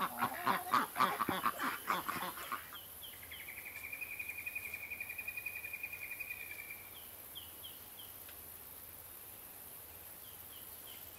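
Ducks quacking in a busy run of calls that stops about two and a half seconds in. After that comes a faint, high, rapidly pulsing trill lasting about four seconds, then a few short high chirps in twos and threes.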